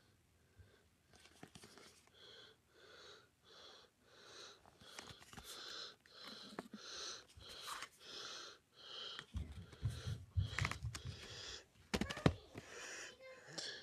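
Soft whispering voice: short breathy syllables about two a second, without voiced pitch, with a few faint clicks and a brief low rumble about two-thirds of the way through.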